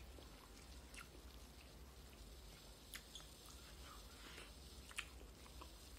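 Faint sounds of eating by hand: fingers mixing rice on a plate and quiet chewing, with a few small clicks, the sharpest about five seconds in, over a low steady hum.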